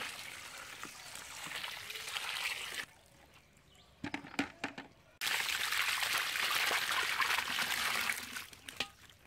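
Water splashing and pouring as wet, live fish are tipped into a basket; the splashing stops abruptly about three seconds in. After a short lull with a few knocks, a second rush of splashing water starts suddenly and dies away near the end.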